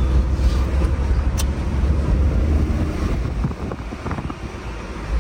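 A motor vehicle running amid traffic noise, with a steady low rumble of wind on the microphone.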